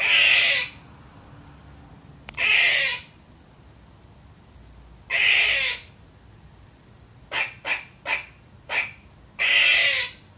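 Young gray squirrel barking: four longer, drawn-out calls spaced a few seconds apart, with a quick run of four short, sharp barks between the third and fourth.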